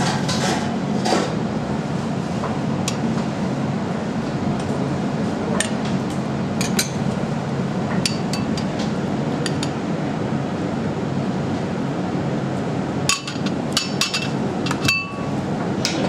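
Stainless-steel kitchen tongs clicking and tapping against ceramic dishes while slices of grilled tomato are laid onto the meat: scattered single clicks, then a quick flurry of clicks and one short ringing clink near the end, over a steady mechanical hum.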